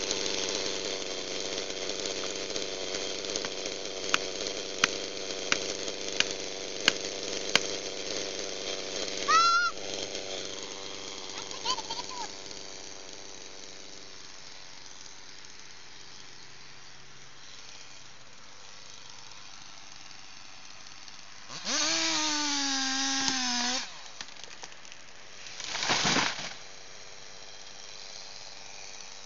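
Stihl chainsaw idling steadily, with six sharp knocks a few seconds in; its sound fades out after about fourteen seconds. Later a long, loud, wordless shout rings out, and a few seconds after it a large tree crashes to the ground in one short, heavy burst.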